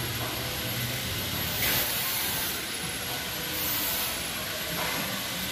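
Steady hiss of outdoor background noise, with a low hum that fades out about a second in.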